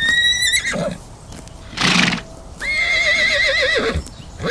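Horse whinnying: a short high call, a breathy burst, then a longer quavering whinny that drops in pitch at the end.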